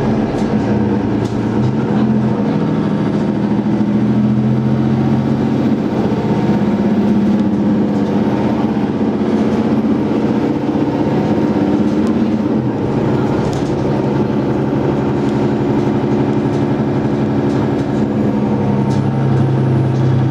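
Interior sound of a single-deck diesel bus under way: a steady engine and gearbox drone with road noise and light rattles. The engine note steps to a new pitch a few times as the automatic gearbox changes gear.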